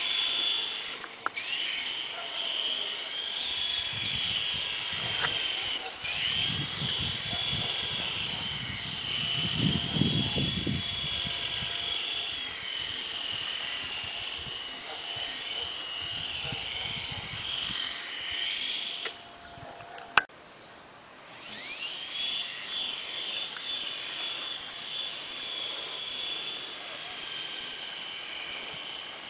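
Sky Rider 22 RC helicopter in flight: a high rotor whine that wavers in pitch as it flies. It drops out for a couple of seconds about two-thirds through, then comes back rising in pitch.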